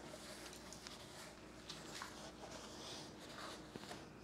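Quiet room tone with faint rustles and small light scrapes, over a low steady hum.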